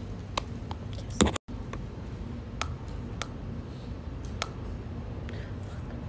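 Plastic makeup cases and jar lids handled, giving a few sharp clicks and taps over a steady low room hum; the loudest click comes about a second in, and the sound cuts out for a moment just after.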